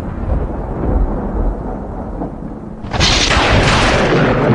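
Thunder sound effect: a low rumble, then a sudden loud crack of thunder about three seconds in that keeps rolling.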